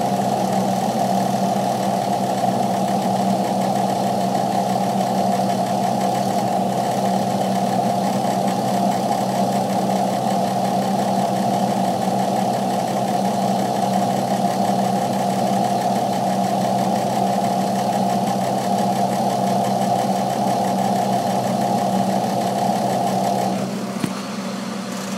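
Freightliner truck's diesel engine idling steadily, heard from inside the cab. A higher steady hum in it cuts out shortly before the end, and the sound drops a little.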